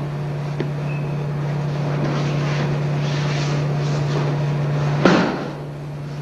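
An aikido partner's breakfall hitting the mat with one loud slap about five seconds in, over the steady low hum and hiss of an old videotape recording.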